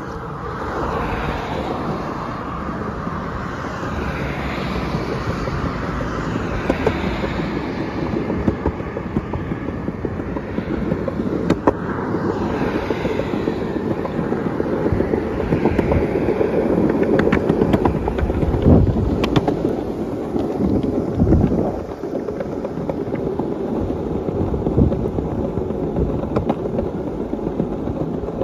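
Skateboard wheels rolling on a concrete sidewalk: a steady rumble with occasional sharp clicks as they cross the slab joints.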